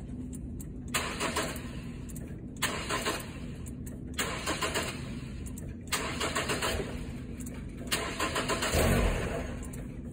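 Car starter cranking the engine in five short bursts of about one and a half to two seconds each, with brief pauses between them. The engine is being teased after an oil change: turned over on the key without letting it start.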